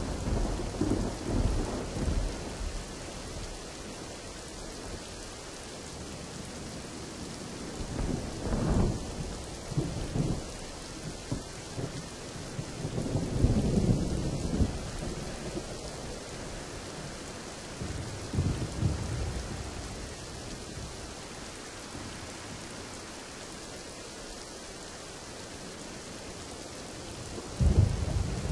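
Steady heavy rain with rolling thunder: low rumbles swell and fade several times, loudest around the middle and again near the end.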